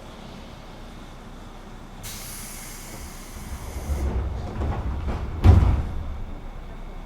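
Pneumatic sliding passenger doors of a JR West 201 series train working: a hiss of compressed air for about two seconds, the door panels rumbling as they slide, and a sharp bang as they reach the end of their travel about five and a half seconds in.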